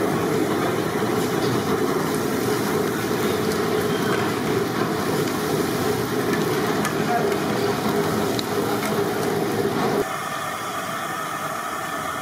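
Steady, noisy roar of a busy cooking area, with voices in the background. About ten seconds in it drops and changes to a thinner, steady hiss.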